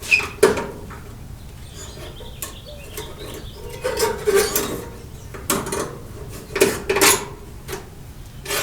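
Irregular metallic clinks and knocks, about eight separate sharp strikes, from hand work with tools and steel wire at the radiator.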